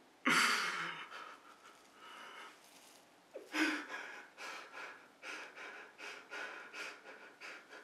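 A man's heavy, distressed breathing: a loud gasp just after the start, another about three and a half seconds in, then quick heavy breaths about three a second.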